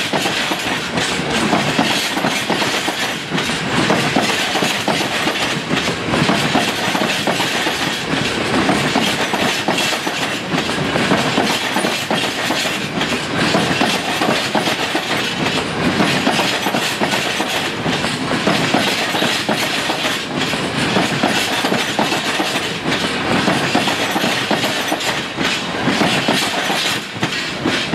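Freight train of bogie oil tank wagons rolling past close by: a steady rumble of steel wheels on the rails, with a continual clickety-clack as the wheelsets cross rail joints.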